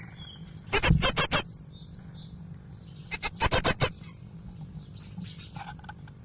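Great tit nestlings begging from inside the nest box: rapid, harsh calls in short bursts of five or six notes, loud twice and fainter once near the end. A steady low electrical hum runs underneath.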